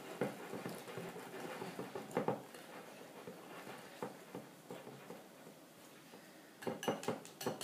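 Wire whisk stirring thick cake batter in a ceramic bowl as softened butter is worked in: soft, irregular taps against the bowl, quieter in the middle, then a quick run of clicks near the end.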